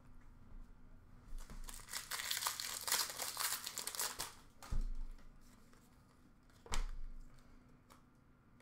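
Trading card pack wrapper crinkling and tearing as a pack is opened, with a dense crackle of small clicks for about three seconds, then two sharp knocks a couple of seconds apart.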